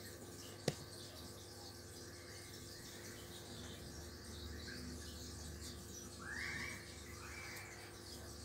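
Faint steady hum of aquarium equipment: an internal filter and an air pump running. Faint high chirping sounds over it. There is a single sharp click just under a second in, and a brief louder patch of noise about six seconds in.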